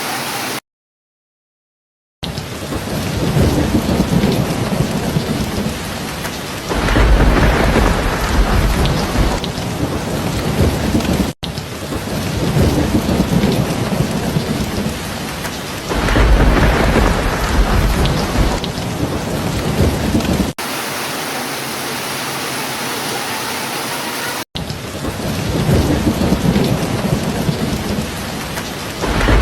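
Steady heavy rain with deep rolls of thunder, three swells several seconds apart, after a brief dropout to silence near the start.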